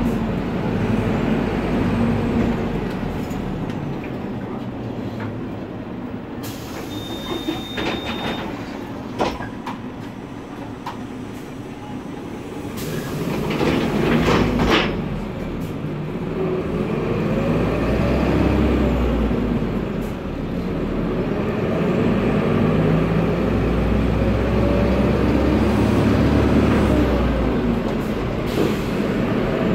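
Isuzu Citibus turbo-diesel engine and cooling fan heard from the rear of the bus cabin, running steadily and rising and falling in pitch as the bus drives. Loud air hisses from the pneumatic brakes come in a few times, the strongest around a quarter to halfway through.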